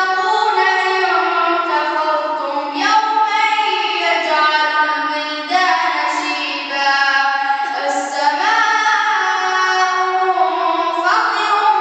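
A boy's voice chanting unaccompanied into a microphone, with long held notes that bend in pitch. The chant comes in phrases of a few seconds with short breaks between them.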